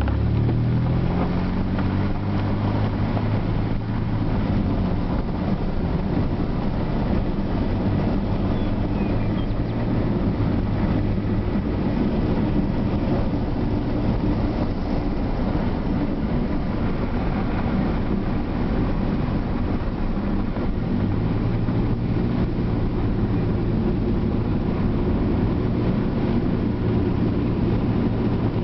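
A motor engine runs steadily under a rushing wash of noise. Its pitch rises as it speeds up in the first second, then holds. The hum drops back for a few seconds about two-thirds of the way in and returns.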